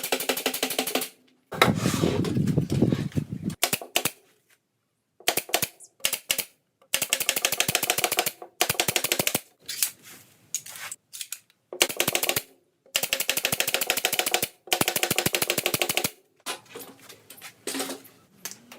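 Power screwdriver driving screws into the panels of a subwoofer enclosure, in repeated bursts of about a second of very rapid clicking with short pauses between.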